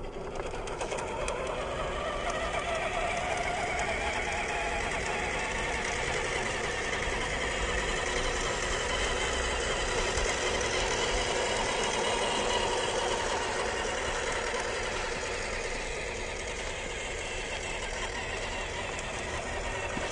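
WPL D12 RC truck's brushed electric motor and gearbox whirring steadily as it drives, the pitch drifting slightly up and down.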